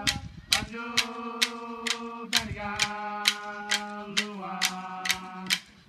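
An Aboriginal cultural song: a voice chanting long, held notes that step down in pitch, over a steady beat of sharp clicks about two a second. The voice fades out just before the end.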